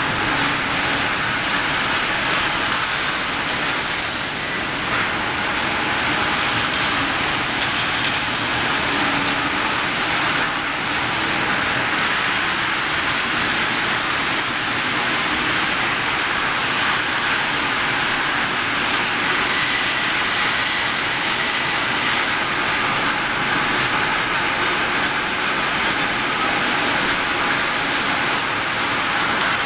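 Steady, loud industrial din of a section rolling mill's running machinery and roller tables, even throughout, with a few brief clicks about four seconds in.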